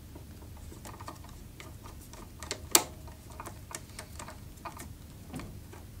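Screwdriver turning a terminal screw on a three-way switch: a run of small, irregular clicks and scrapes, with one sharper click a little under three seconds in.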